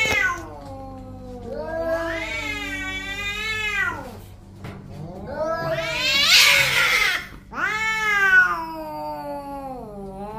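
Two domestic cats caterwauling at each other in a fighting standoff. They give long, drawn-out yowls that waver up and down in pitch, with a harsh hissing outburst about six seconds in.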